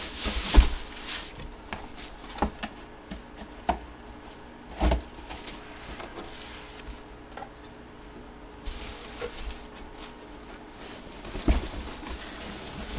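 Handling noises on a table: a few scattered knocks and taps, the loudest about half a second in, with light rustling between them.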